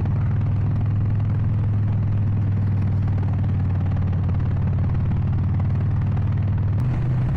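Harley-Davidson Sportster Iron 883's air-cooled V-twin engine running at a steady, low note while cruising. Near the end there is a click and the engine note steps up in pitch, as on a downshift.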